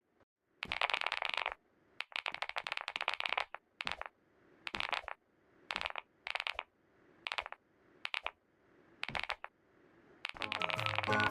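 Cream being squished and scraped in about ten short crackling bursts with brief pauses between. Music starts near the end.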